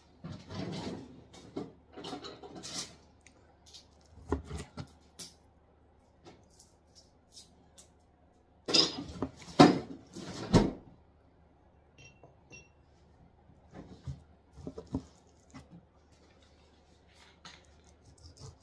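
A chef's knife knocking and scraping on a cutting board as raw chicken breast is cut into small cubes. The strokes come irregularly, with a cluster of louder knocks about nine to eleven seconds in.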